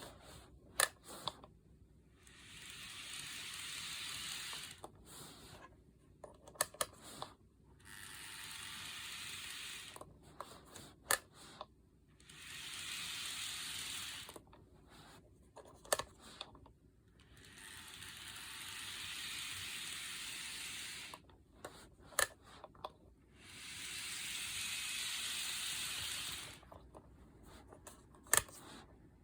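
A small geared mechanism run in reverse in short bursts of about two to three seconds, about six times, making an abnormal grinding, ratchet-like noise. Sharp clicks fall between the runs.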